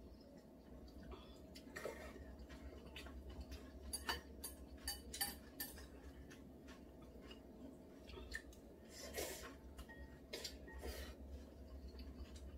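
Metal chopsticks clicking against ceramic bowls and a pot while two people eat black-bean-sauce noodles, with a quick run of sharp clinks about four to five seconds in and softer eating noises around them. A steady low hum runs underneath.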